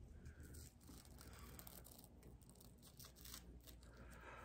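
Faint, irregular crackling of a vitamin E peel-off face mask being peeled from the skin by hand.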